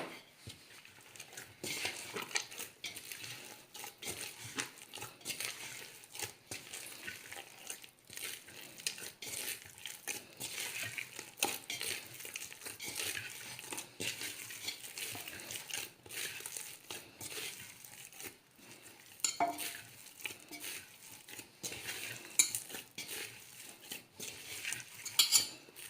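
Hands kneading soft maida dough with groundnut oil worked into it in a bowl: an irregular run of squishes and light knocks against the bowl.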